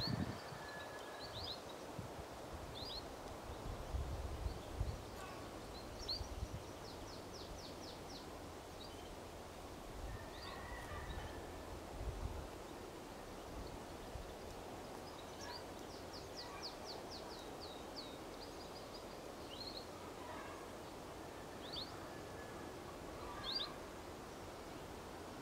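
Small songbirds calling in short high chirps, with two quick trilled songs of rapidly repeated notes, over a steady hiss. A few low rumbles come and go in the first half.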